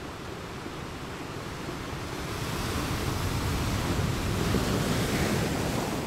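Ocean surf breaking on a sandy beach: a rush of wave noise that swells about two seconds in, is loudest in the second half, and eases off near the end as the wave washes up the shore.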